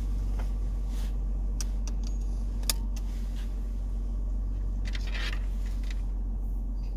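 Steady low engine rumble inside a car's cabin, with a few sharp clicks and a short rustle of small objects being handled. The loudest click comes a little under three seconds in.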